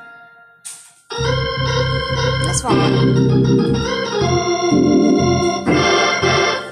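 Two-manual drawbar console organ played with both hands. A held chord fades out, a brief pause follows with a single click, then full sustained chords with a low bass come in about a second in and change every second or two.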